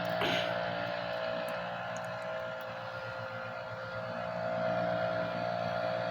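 A motor running steadily, a constant hum, with a short rustle or clatter just after the start.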